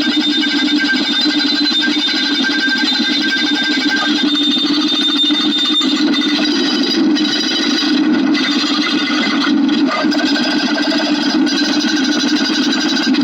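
A steady, dense stream of rapid clicking that runs on without pauses.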